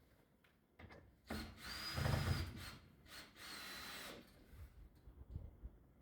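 Power drill running in two short bursts of about a second each, with a steady high motor whine, fixing the front panel onto a wooden barn owl nest box.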